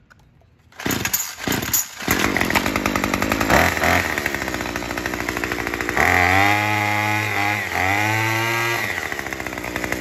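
Murray M2510 string trimmer's small two-stroke engine starts about a second in and runs, then is revved up twice, pitch climbing and falling back, about 6 and 8 seconds in. The revving is the throttle answering through the newly replaced throttle cable.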